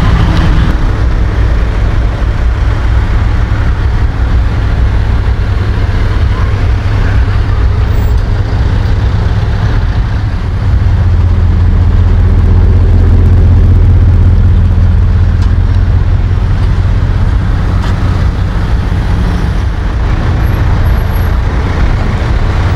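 Motor vehicles running in slow street traffic: a steady, loud low engine rumble that gets louder about halfway through and drops back near the end.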